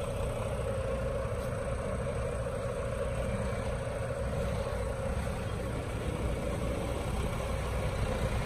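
Bare Volvo B11R bus chassis, each with a six-cylinder Volvo D11 diesel engine, driving slowly past in convoy; a steady low diesel rumble.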